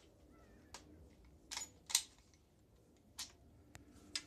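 A handful of short, sharp mechanical clicks and clacks at uneven intervals, the loudest about two seconds in: handling noise from gear at the shooting bench, not a shot.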